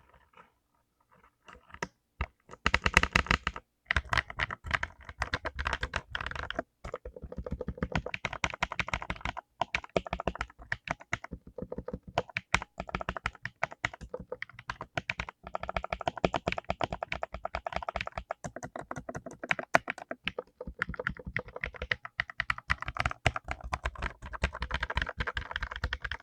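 Mechanical keyboard with lubed blue clicky switches being typed on fast: a dense run of sharp key clicks. It starts with a few scattered keystrokes, then becomes continuous typing about two seconds in.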